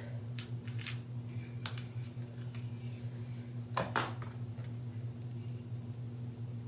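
Soft handling sounds of dental floss and its small plastic dispenser, with a few faint clicks and a louder brief rustle about four seconds in, over a steady low hum.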